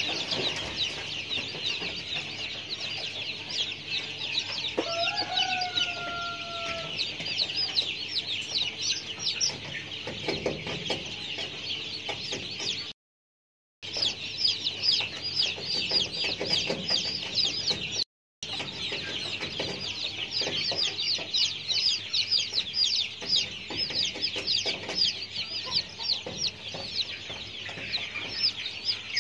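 Dense, rapid, high-pitched chirping from many birds, with one longer call about five seconds in. The sound cuts out completely twice: for nearly a second near the middle, then briefly a few seconds later.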